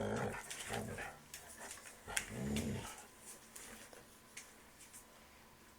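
Dog growling in low grumbles: a few short ones, then a longer rising-and-falling growl about two and a half seconds in, with light clicks and scuffling. It quiets down after about three seconds.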